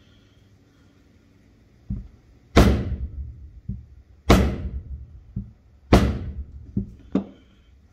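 Three heavy rubber-mallet blows on a Honda VF750F motorcycle water pump assembly resting on a wooden block, about a second and a half apart, each ringing briefly, with a few lighter knocks between them. The blows are an attempt to knock apart the pump, whose shaft will not move.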